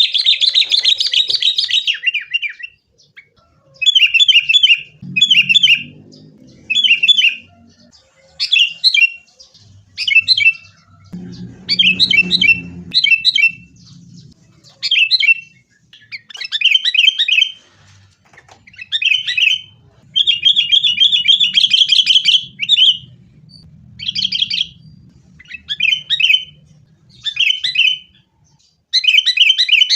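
Sooty-headed bulbuls calling: short bubbling phrases about once a second, with longer, busier chattering runs at the start and about twenty seconds in. These are agitated, fighting calls of the kind used to lure other kutilang into calling.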